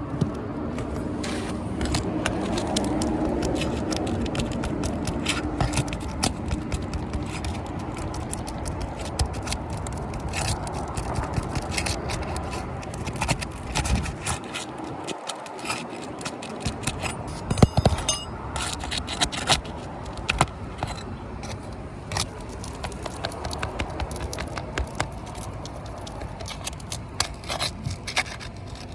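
Asphalt shingle tabs being pried up off a roof: steady scraping with many sharp clicks and crackles as the sealed tabs are worked loose from the shingles beneath.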